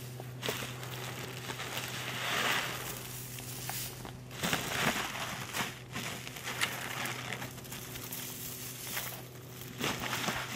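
Plastic bag crinkling and rustling in irregular bursts as it is handled and emptied of animal feed, over a low steady hum.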